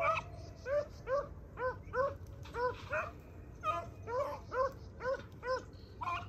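Rabbit beagles, more than one, baying in a steady run of short arched barks, about two a second, the sound of the pack running a rabbit by scent.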